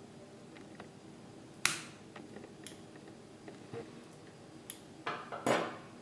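Fly-tying scissors and small metal tools clinking on the tying bench: one sharp metallic clack about a second and a half in, a few light ticks, and a short clatter near the end.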